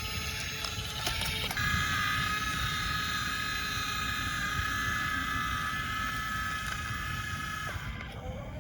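Small electric motors of a 1:20 RC excavator running with a steady whine. The pitch shifts about a second and a half in, holds, then changes again near the end as a new whine rises.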